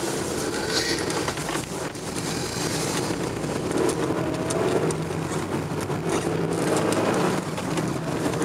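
Steady engine and road noise heard from inside the cabin of a moving car.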